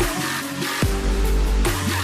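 Electronic music with a heavy deep bass that comes in about a second in and drops out again shortly before the end.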